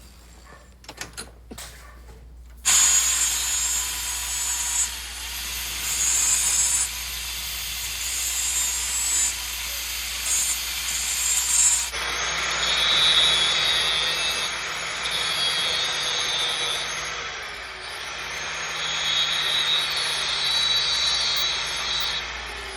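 A few light clicks, then about three seconds in a high-speed power tool starts cutting into a metal piece, running with a high whine and a harsh grinding hiss. Its whine dips now and then as the cut loads it, and about halfway through it drops to a lower pitch and carries on cutting.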